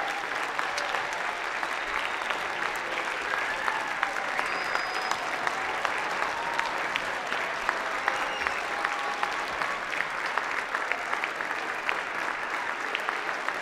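Large audience applauding, a dense, steady clapping that holds at an even level throughout.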